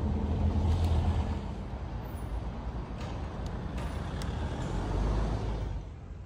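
Street traffic: the low engine rumble of passing motor vehicles with general road noise, easing off shortly before the end.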